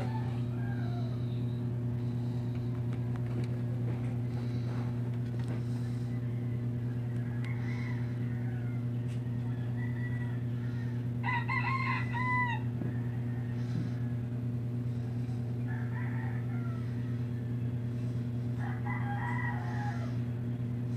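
A rooster crows once about halfway through, with a few shorter chicken calls before and after, over a steady low hum.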